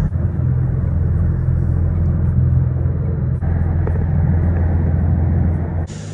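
Inboard diesel engines of a 35-foot Caribbean game boat running underway, a steady low drone. Near the end it switches suddenly to a quieter, brighter hiss of water and air over the engine hum.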